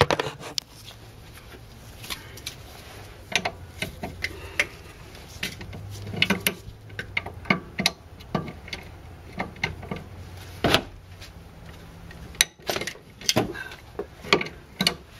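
Scattered metallic clicks and knocks of hand tools on a car's front suspension. Near the end comes a quicker run of clicks as a ratchet wrench is worked on a nut at the steering knuckle.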